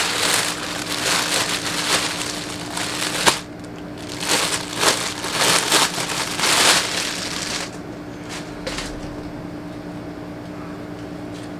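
Clear plastic packaging bag crinkling and rustling as a folded T-shirt is unwrapped and pulled out, with one sharp crack about three seconds in. The crinkling dies down after about eight seconds, leaving only a few soft rustles.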